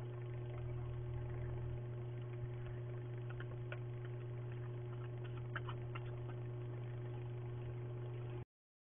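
Steady electrical hum from a security camera's built-in microphone, with a few faint clicks about three and a half and five and a half seconds in. The sound cuts off abruptly near the end.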